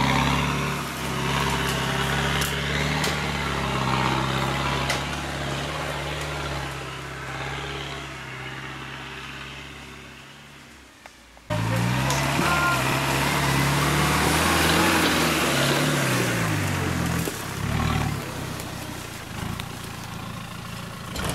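Land Rover off-road vehicle's engine running as it drives off, fading steadily for about ten seconds. After an abrupt cut it is loud again, revving up and down repeatedly as the vehicle crawls over rough ground.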